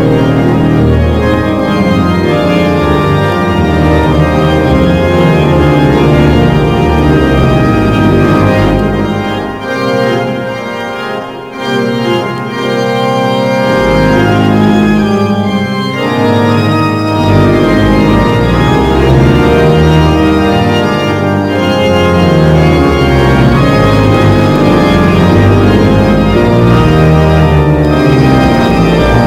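The Eton College Chapel pipe organ playing a loud, full piece of sustained chords over a moving bass line. About nine seconds in the bass drops out and the music goes quieter for a few seconds, then the full sound returns.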